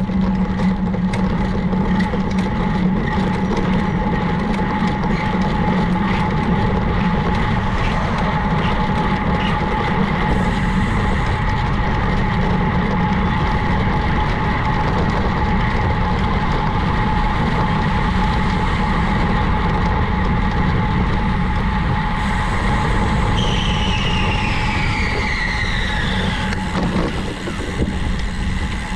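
Steady road and traffic noise heard from a moving bicycle. Near the end a whine falls in pitch over about three seconds, as a passing vehicle goes by.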